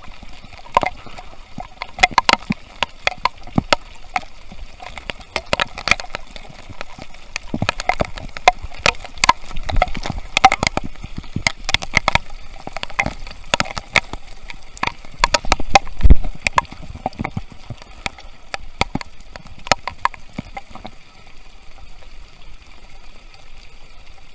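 Heavy rain at sea, heard up close: large raindrops striking as sharp, irregular taps over a steady patter. The hardest hit comes about sixteen seconds in, and the taps thin out near the end.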